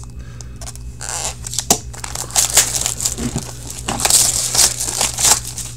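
Wrapper of an Upper Deck Artifacts hockey card pack crinkling and tearing as it is opened by hand, in irregular crackles that thicken from about a second in. A steady low hum runs underneath.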